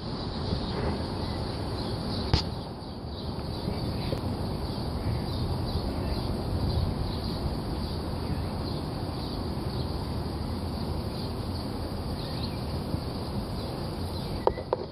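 Outdoor background noise with a steady low rumble and faint, repeated high chirps, and one sharp click about two seconds in.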